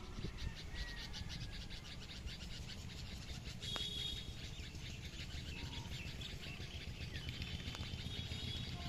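Birds chirping and calling, with a fast high chirping running throughout and a few short whistled notes, over a low steady background rumble.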